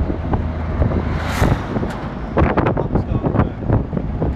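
Open-top WWII army jeep under way at road speed: its four-cylinder side-valve engine running steadily under wind and road noise. A rushing swell of air about a second and a half in as an oncoming semi-trailer truck passes close by, then a run of short rattles.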